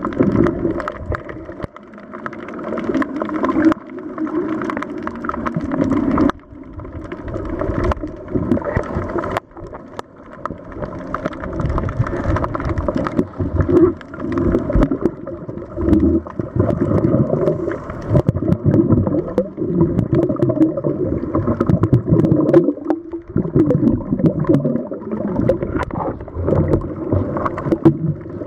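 Underwater recording of a scuba diver's exhaled air bubbling out of the regulator. It is a muffled gurgling rush that swells and fades in waves every few seconds, with brief quiet dips between breaths.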